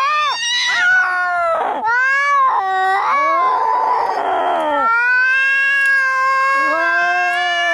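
Angry cats caterwauling in a fight: long, drawn-out yowls that rise and fall in pitch. A harsh, raspy hissing stretch comes about halfway through, and two howls overlap near the end.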